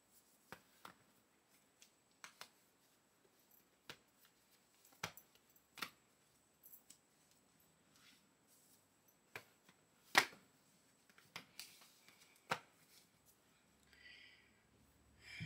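Scattered soft clicks and taps with faint rustling from hands handling a synthetic wig and its hair, with one sharper click about ten seconds in. Near the end comes a rustle as the wig is pressed down on the head.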